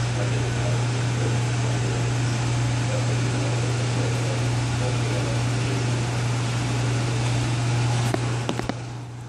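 Steady low hum and hiss of a gym's air conditioning. Near the end, a few sharp knocks as the phone recording it is picked up and handled.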